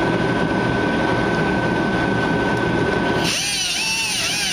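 Small cutoff wheel tool running at speed with a steady high whine. About three seconds in, background music takes over.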